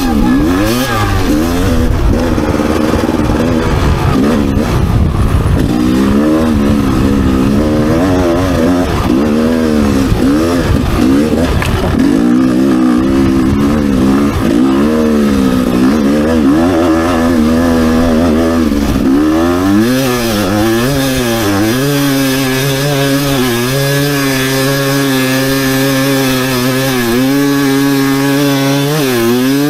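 Two-stroke enduro motorcycle engine revving hard in repeated rising and falling surges, working in deep sand. About 20 seconds in it settles to a steadier, held pitch.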